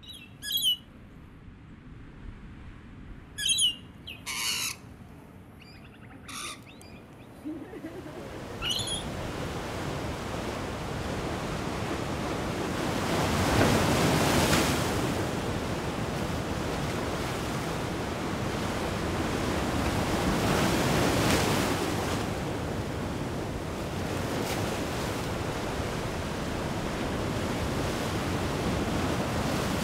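Birds give a few short chirps and squawks in the first several seconds. Then the surf of ocean waves breaking and churning fades in, swells twice, about halfway and again about two-thirds of the way through, and runs on steadily.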